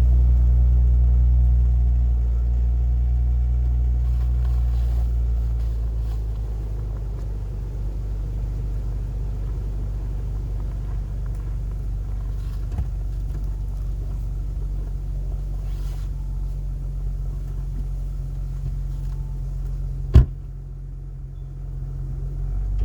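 2018 Audi S5 Sportback's turbocharged V6 idling after a cold start, its low exhaust rumble easing down in the first several seconds as the fast idle settles. A single sharp knock comes near the end, followed by a brief quieter spell before the engine sound rises again.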